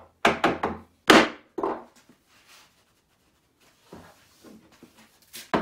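Wooden mallet knocking on a bench holdfast and doe's foot to drive the board tight against the planing stop: about five sharp blows in the first two seconds, the loudest about a second in. After a short pause come a few light knocks and one louder knock near the end.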